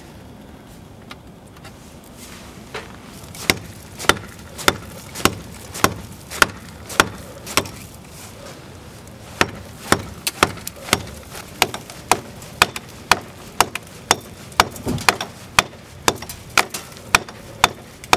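Hand hammer striking a concrete cinder block wall, breaking through the block's inner web. The blows are sharp and even, about two a second, with a short pause about halfway through.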